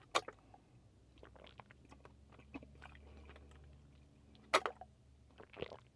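A person eating and drinking: chewing, with small mouth noises and sips through a straw from a paper drink carton. Two louder sharp smacks stand out, one right at the start and one about four and a half seconds in.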